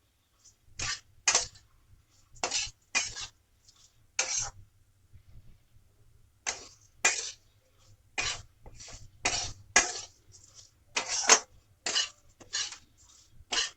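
Spatula scraping and stirring dry flattened rice (poha) with turmeric around a pan with no oil, dry-roasting it. Short scraping strokes come roughly one a second, with a pause of about two seconds in the middle.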